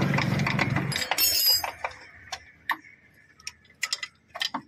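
Scattered sharp metallic clicks and clinks of hands and tools working on a car's front shock absorber mounting bolts. A low steady hum runs under the first second and then stops.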